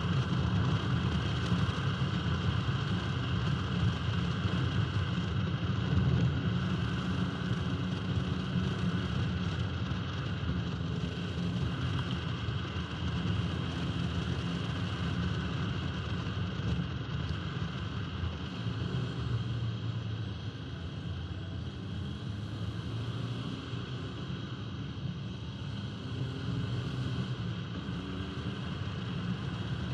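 1971 Alfa Romeo 1750 GTV's twin-cam four-cylinder engine running steadily as the car drives along at speed, mixed with tyre and wind noise at a camera mounted outside on the car's flank. The sound eases a little about two-thirds of the way through.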